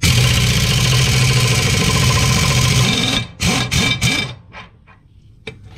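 Pneumatic impact wrench running hard on a mower-blade bolt, loosening it. It runs for about three seconds, then cuts off suddenly.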